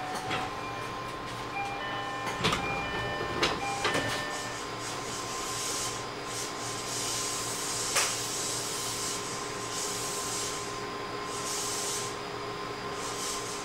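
Onboard sound of a JR East 205 series 600 subseries electric commuter train: a steady hum with a few steady tones. A couple of seconds in comes a short run of tones with sharp clicks, then from about six seconds a hissing that comes and goes, with one more click near eight seconds.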